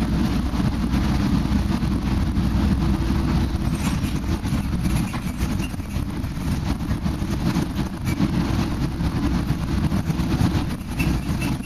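Steady engine and road rumble inside a moving shuttle bus.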